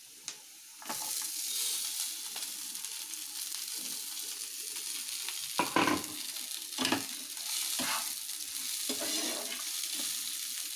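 Cauliflower florets going into hot oil in a pan with frying beans and carrots: a steady sizzle starts about a second in, with about four knocks and scrapes of the spatula against the pan as the vegetables are stirred.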